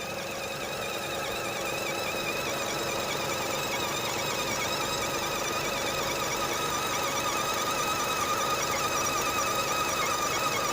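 A 2010 Nissan Serena's engine running with a high-pitched, slightly warbling whistle-squeal from the belt-driven accessory drive, growing gradually louder. The owner blamed the idler pulley bearing, but replacing it has not cured the squeal.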